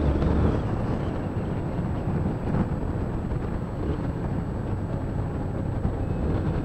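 Honda CB300 motorcycle's single-cylinder engine running steadily as the bike rides along, mixed with steady road and wind noise.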